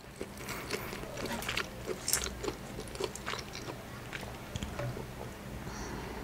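Close-miked mouth sounds of chewing a last mouthful of saucy seafood: soft wet smacks and small clicks at irregular intervals. In the second half, a quieter sip through a straw.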